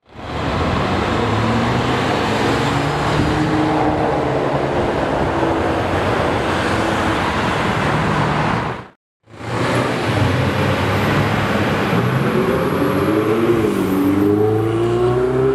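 A Ferrari 599 GTB's V12 running as the car pulls away through traffic. After a short silent break, another supercar accelerates past with its engine note rising.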